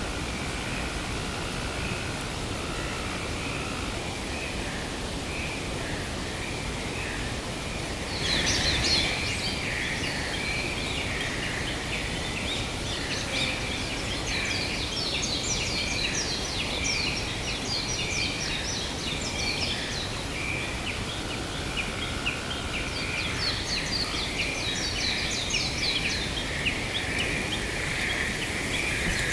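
Forest ambience: birds chirping and trilling in quick bursts from about eight seconds in, over a steady, pulsing high-pitched calling chorus and a constant hiss of wind.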